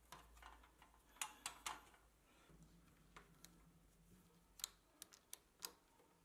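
Faint, scattered clicks and taps of plastic cable clips being pressed onto the desk underside and snapped over a cable: three quick clicks about a second in, then a handful more spread through the second half.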